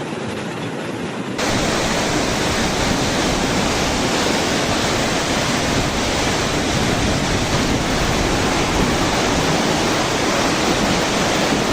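Loud, steady rush of floodwater in a swollen river, cutting in abruptly about a second and a half in after a quieter stretch.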